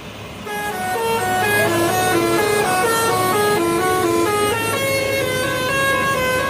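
Bus telolet horn playing a quick tune of stepped notes, starting about half a second in.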